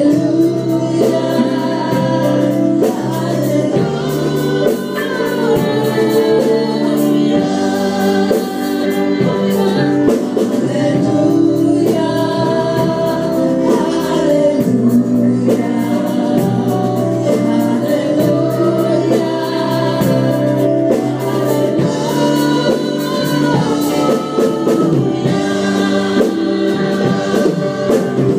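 Live gospel praise-and-worship music: a group of singers singing together into microphones, backed by a band with drum kit and keyboard, playing steadily throughout.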